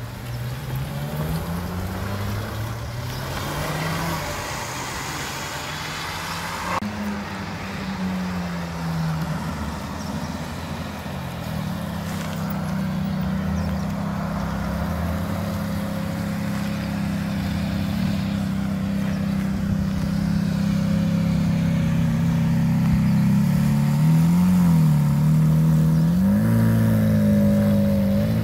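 Ferrari sports-car engines passing at low speed, the pitch rising and falling for the first several seconds. Then comes a long steady note from a Ferrari F430's V8, a few quick throttle blips near the end, and the note climbing as the car accelerates away.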